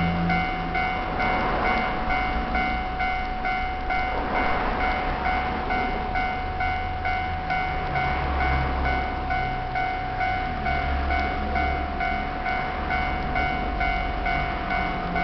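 Japanese railway level crossing's electronic alarm bell ringing steadily, a bright two-tone clang repeating a couple of times a second, with an uneven low rumble underneath.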